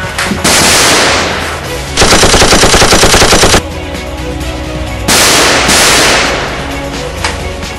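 Machine-gun fire sound effects over background music: a burst about half a second in, a longer rapid rattle of about ten shots a second from two seconds to about three and a half, and another burst around five seconds in.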